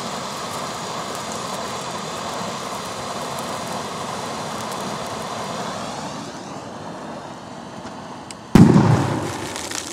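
A small ground firework hissing steadily as it spews a jet of sparks, dying down after about six seconds. Near the end comes a single loud firecracker bang that rings out and fades over about a second.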